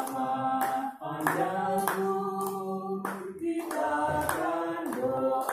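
A small group singing a birthday song together, clapping their hands in time at about one-and-a-half claps a second.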